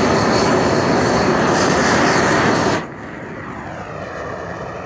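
Flamethrower's gas flame blasting onto dry ice: a loud, steady rushing noise that cuts off suddenly about three seconds in, leaving a much quieter steady background noise.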